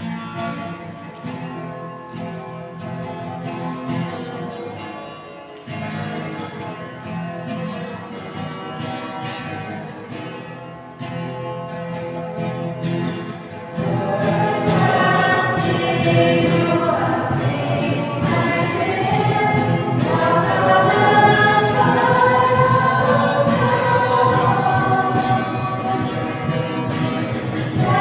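Church hymn: guitar strumming alone at first, then about halfway through a choir comes in singing, and the music grows louder.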